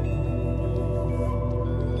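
Ambient new-age relaxation music: a steady low drone under long, held tones, with new high notes coming in one after another.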